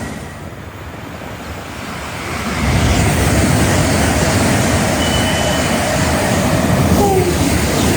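A train passing at speed: a steady rushing of wheels on rail and moving air that swells about two and a half seconds in and stays loud.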